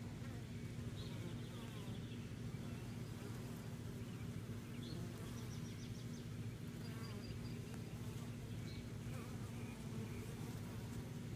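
Honeybees buzzing at a hive entrance: a steady hum of many bees' wings as they cluster on the landing board and fly in and out.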